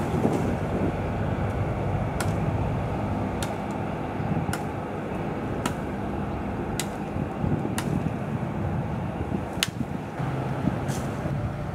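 Steady low rumble of airliner jet engines, with faint sharp ticks recurring about once a second.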